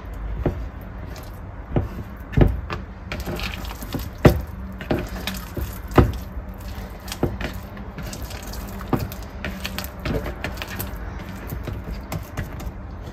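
Wet, high-hydration ciabatta dough being stretched and folded in its bowl: irregular slaps and knocks of dough and bowl, about a dozen, over a steady low hum.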